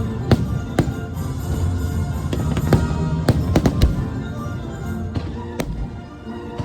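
Fireworks bursting in a string of sharp bangs, with a quick cluster of several bangs about halfway through, over the show's music.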